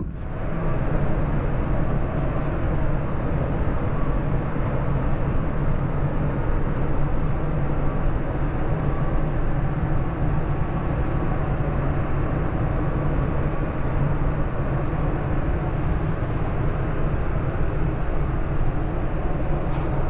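Tractor engine running steadily at an even speed, a constant low drone.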